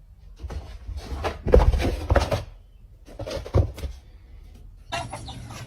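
A run of knocks and clattering indoors, loudest about one and a half to two seconds in, followed by a shorter clatter a little past three seconds.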